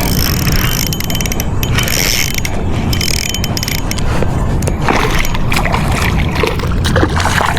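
Shimano Vanford 2000 spinning reel being cranked, its gears whirring steadily as line is wound in, over a heavy low rumble.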